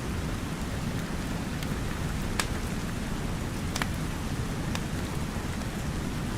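Steady rain falling with a wood fire crackling: a handful of sharp pops over the even hiss of the rain, the loudest about two and a half seconds in.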